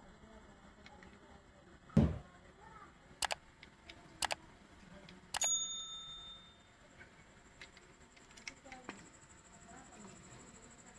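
Handling noises: a thump about two seconds in, then a few sharp clicks, and one click that rings briefly with a small metallic ding.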